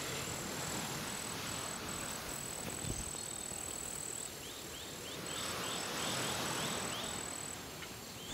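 Ambience of insects: a high, thin buzzing trill in long pulses, stopping briefly midway. A run of short, quick rising chirps, about four a second, comes about five seconds in, over a faint hiss.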